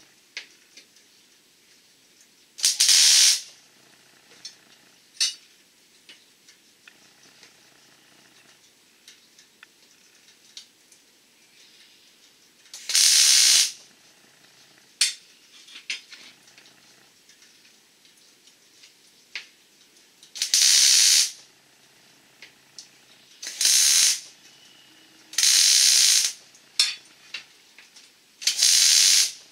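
A compressed-air tool fired in six short bursts, each a loud hiss of well under a second, with small clicks and taps of handling between them.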